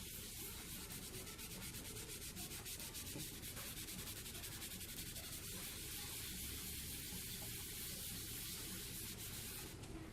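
Faint scrubbing of a fridge surface with a gritty paste of toothpaste and bicarbonate of soda to lift pen ink, in quick, even back-and-forth strokes that ease off near the end.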